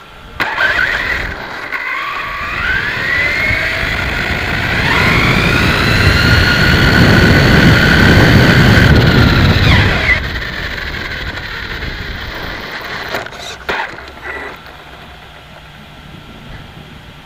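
Electric motor and drivetrain of an XTM XT2E RC buggy whining up in pitch in several surges of acceleration, heard from a camera mounted on the buggy, with tyre rumble on tarmac beneath. The whine holds high for a few seconds, then drops away about ten seconds in as the buggy slows, followed by a few knocks.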